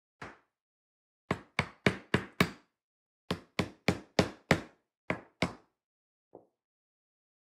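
Hard maple parts of a freshly glued joint knocked home by hand: one knock, then a quick run of five, a short pause, six more, and a faint last tap.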